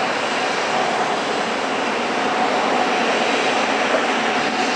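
Boeing 777-300ER's GE90 jet engines at taxi power: a steady rushing hiss with a faint, steady whine.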